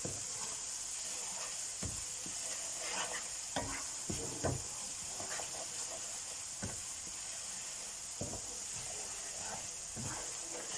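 Onion-tomato masala with spices sizzling in hot oil in a karahi, with a steady frying hiss, while it is stirred: a utensil scrapes and knocks against the pan every second or two.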